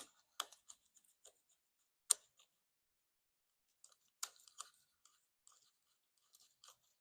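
Faint, scattered clicks and taps of small metal parts being handled: Phillips screws and a screwdriver being set to the twist-throttle housing. The sharpest taps come about half a second, two seconds and four seconds in.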